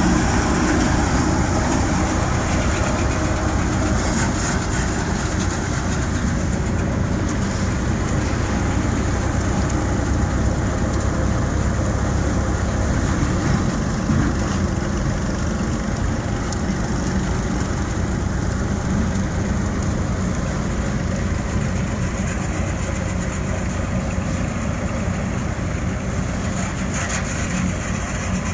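Tractor-driven paddy thresher running steadily under load: the tractor engine and the spinning threshing drum, as paddy bundles are fed in and grain is threshed out.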